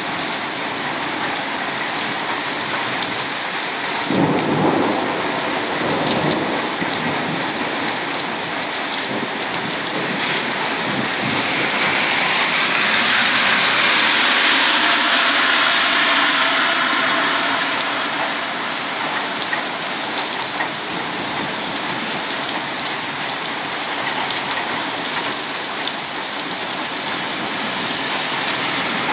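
Heavy rain pouring steadily during a thunderstorm, with a peal of thunder breaking about four seconds in and rumbling for a few seconds. The downpour grows heavier in the middle before easing again.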